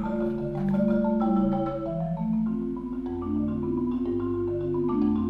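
Concert marimba played with mallets in sustained rolls: low rolled chords with a slower line above, changing pitch every half second or so. The player himself later faults these rolls for not knowing how to roll and playing them with no change of speed or softness.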